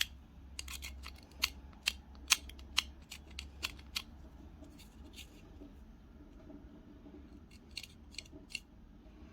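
Sharp clicks and taps of small hand tools and die-cast toy car parts being handled, about two a second at first, then a few more near the end.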